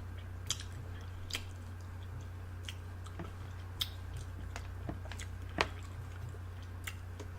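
Someone chewing grapes close to the microphone: scattered wet mouth clicks and squishes, about a dozen, over a steady low hum.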